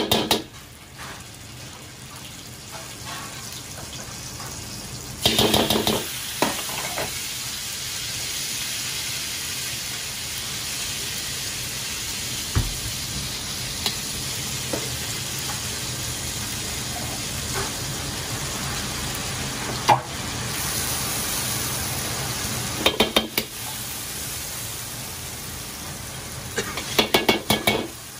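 Seasoning pastes frying in oil in a carbon-steel wok, a steady sizzle. A metal ladle and spoon clink and scrape against the wok in short bursts a few times.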